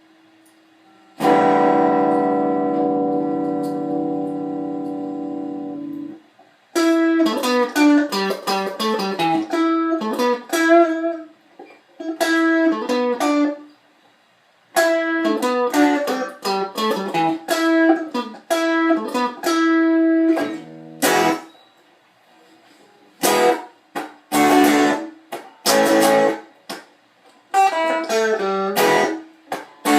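Strat-style electric guitar playing: a chord struck and left ringing for about five seconds, then quick single-note riffs in short phrases with brief pauses between them.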